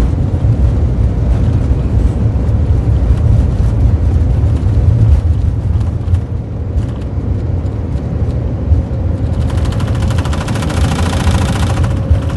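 Airbus A330 on its takeoff roll at takeoff thrust, heard from the cockpit: a loud, steady low rumble of the engines and the wheels on the runway, with a faint steady tone above it. About nine and a half seconds in, a rapid, even rattle joins and lasts a little over two seconds.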